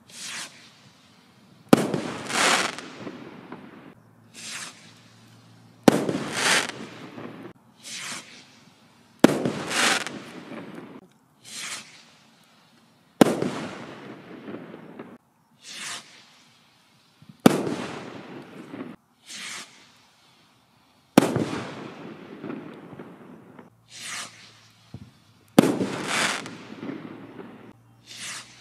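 Tai Pan Afterburner firework rockets going off one after another: seven sharp bursts about every four seconds, each trailing off in a hiss. A brief, softer hiss comes a second or so before most of the bangs.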